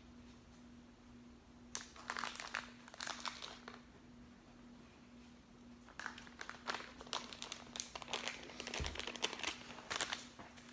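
Aluminium foil being crumpled and folded by hand, in two spells of crinkling: one about two seconds in and a longer one from about six seconds in until near the end.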